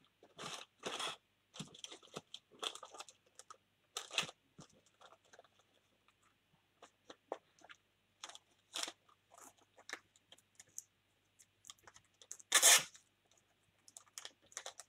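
Clear plastic sleeve crinkling and a hard plastic card case being handled, in short scattered crackles and rustles, with one louder crackle near the end.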